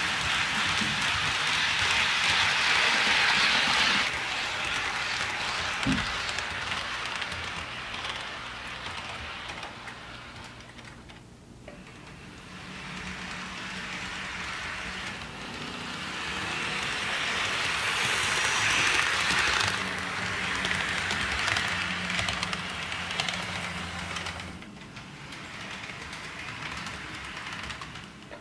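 HO scale model trains running on sectional track: a steady rushing rattle of wheels on rails that swells and fades several times as the cars pass close by, with one short low thump about six seconds in.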